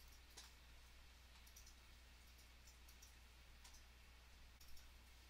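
Near silence: a faint steady low hum with a few scattered faint clicks from working at the computer while drawing.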